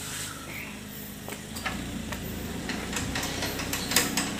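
A vehicle engine running, heard as a low hum that comes in about a second and a half in, with scattered light clicks and taps.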